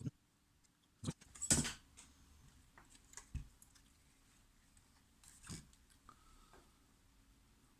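Scattered clicks and knocks of a graphics card and tools being handled on a workbench, with one louder short scrape about a second and a half in.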